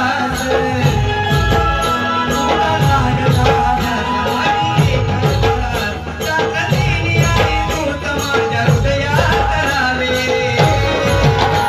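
Live Shakti-Tura folk stavan (devotional song) music: a drum keeps a steady rhythm and jingling percussion runs over it, under held, steady instrumental tones.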